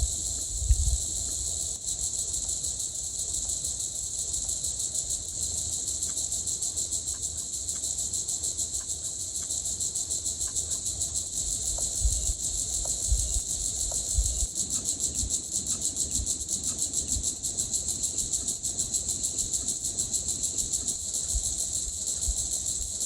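Insect chorus, a steady high-pitched buzz that pulses rapidly throughout, with a few dull low thuds here and there.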